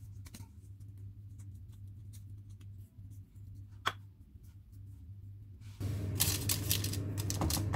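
Faint handling sounds of hands pressing and shaping a ball of pastry dough around its filling: soft rustles and small ticks, with one sharp click near the middle, over a low steady hum. Near the end the sound steps up to a louder hiss with rustling and light taps as shaped pieces are set on a parchment-lined baking tray.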